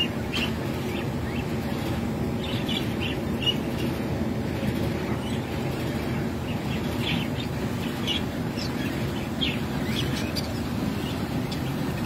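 Budgerigars chirping in short, scattered calls over a steady low hum.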